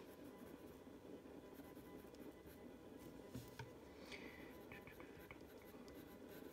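Faint scratching of a colourless blender pencil rubbing over coloured-pencil work on paper, in a few short separate strokes.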